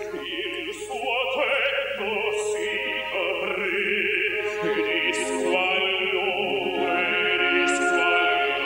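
Operatic singing with a wide vibrato on long held notes.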